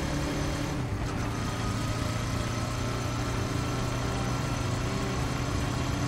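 Motorbike engine running steadily while riding, with rushing wind noise; the engine note drops a little about a second in.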